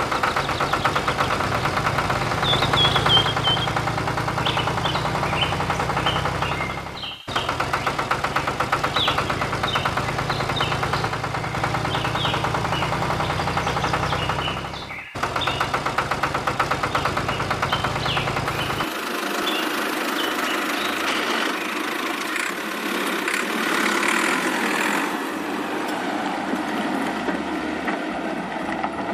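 Steady engine-like running with a fast chugging rhythm, the drive sound of a homemade toy tractor pulling a trolley, with short high chirps or squeaks over it in the first half. It breaks off briefly twice, and after about two-thirds of the way it goes on thinner, without its low rumble.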